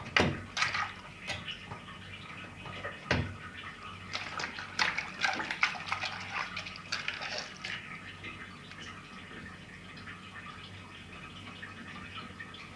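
Water splashing and dripping as a front-load washing machine's drain filter is rinsed clean, with irregular splashes and knocks, busiest about a second in and again between four and six seconds in.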